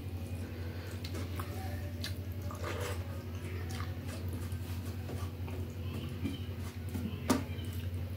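Fingers mixing wet rice and sambar on a steel plate by hand: soft wet squelches and scattered small clicks of fingers against the metal, over a steady low hum. One sharper click comes about seven seconds in.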